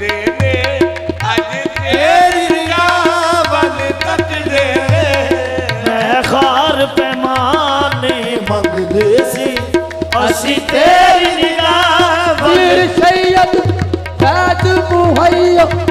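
Qawwali music: tabla keeping a steady beat under a harmonium and a wavering, ornamented sung melody. The drumming breaks off briefly about eight seconds in, then picks up again.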